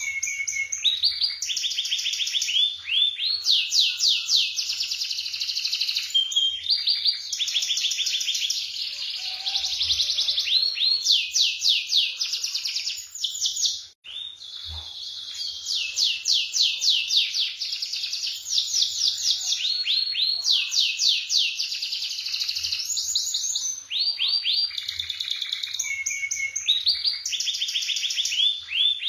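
Domestic canary singing a long, continuous song of fast rolling trills: each phrase is a rapid run of the same note repeated many times, switching to a new phrase every second or two. There is one brief break a little before halfway through.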